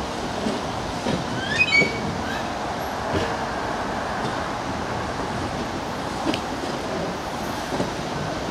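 Train of bogie aggregate hopper wagons rolling slowly past, the wheels rumbling and knocking irregularly over the rail joints. A louder cluster of clanks with short high squeaks comes about a second and a half in.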